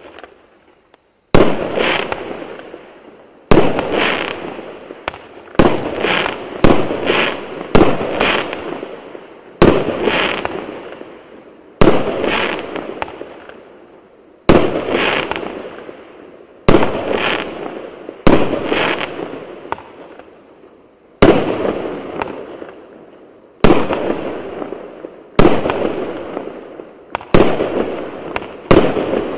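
25 mm, 20-shot firework cake (shot-tube battery) firing: a string of sharp bangs, each trailing off over a second or so. They start about a second in and come irregularly, one every one to two seconds, sometimes two in quick succession.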